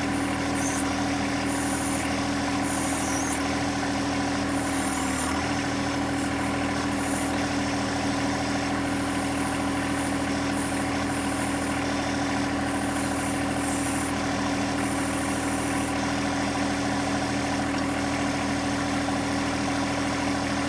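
John Deere 1025R compact tractor's three-cylinder diesel engine running steadily, its pitch dipping briefly about five seconds in.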